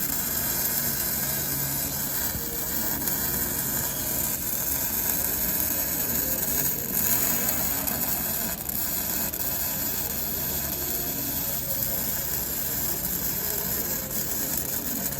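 Electric welding arc hissing and crackling steadily as a seam is welded on a steel narrowboat hull.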